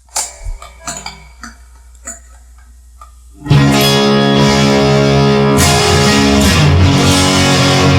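Guitar music: a few quiet, separate plucked notes, then about three and a half seconds in the guitar comes in loud with sustained chords.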